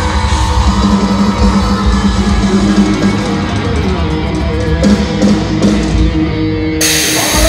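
Live rock band playing with electric guitar and drum kit. Near the end a burst of crowd cheering comes in sharply over the band.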